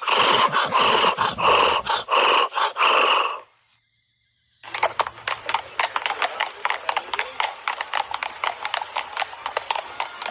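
A horse whinnying in a long quavering call. After a brief pause it gives way to fast hoofbeats clip-clopping.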